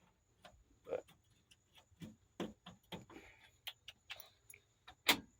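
Irregular clicks and knocks of a military inspection lamp's plug being handled and worked into the truck's small power socket, the loudest knock about five seconds in.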